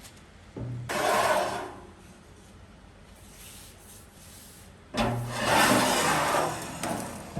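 Two long abrasive strokes worked by hand on the knife, the first about a second long and the second, starting about five seconds in, about two seconds long.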